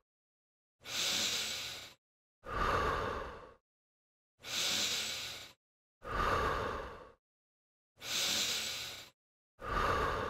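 Steady, exaggerated breathing in time with a crunch exercise: six long breaths in and out in about ten seconds, each starting sharply and fading away, with dead silence between.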